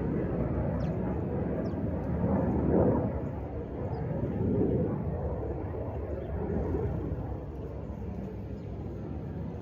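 Outdoor ambience: a low rumble that swells a couple of times, with a few faint, short, high chirps.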